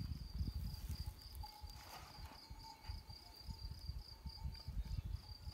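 Field cricket chirping steadily, a high, evenly pulsed trill of about four chirps a second, over a low, uneven rumble.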